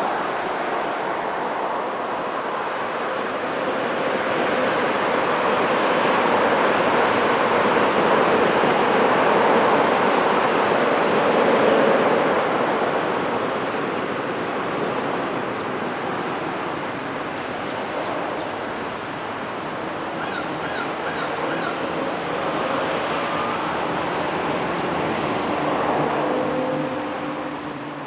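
Road traffic passing on a country road: a steady hiss of tyres and engines that swells as vehicles go by. One pass peaks about a third of the way in, and another, with a low engine drone, comes near the end. A few short bird chirps sound between them.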